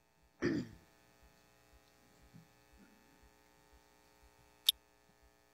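Faint, steady electrical mains hum with a buzzy stack of overtones. A short burst of noise comes about half a second in, and a single sharp click about a second before the end.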